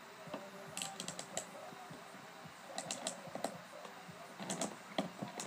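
Snowboard binding ratchet straps clicking in three short runs of quick clicks as they are cinched down over the boot.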